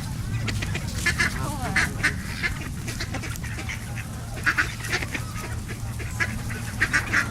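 A flock of ducks and geese calling around the feeders: many short, rasping quacks at irregular intervals, with a few brief honks.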